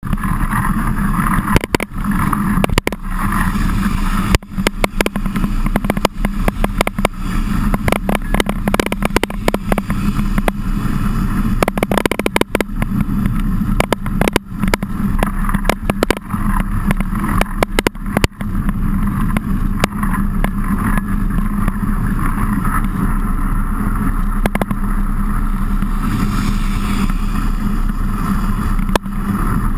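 A mountain bike riding in heavy rain, heard through a camera fixed to the bike: a steady rumbling drone with many irregular knocks and clicks.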